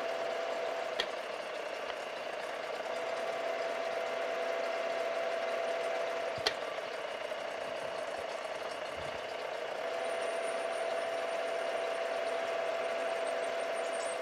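Machine spindle running steadily with a number 5 tapered reamer in the chuck, hand-fed into a drilled hole in steel; a steady motor whine with two light clicks.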